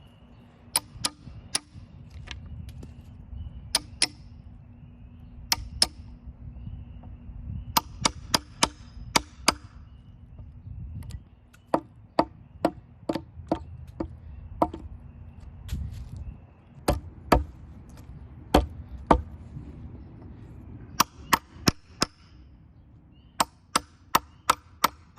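A metal chisel being struck repeatedly to carve a notch into a log: sharp, separate blows in irregular runs with short pauses between them.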